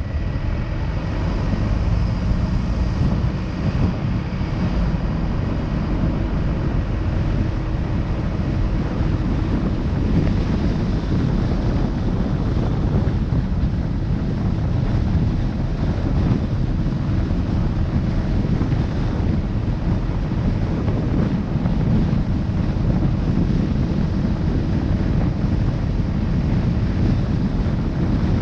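Steady wind rumble buffeting the microphone of a camera moving along an open road.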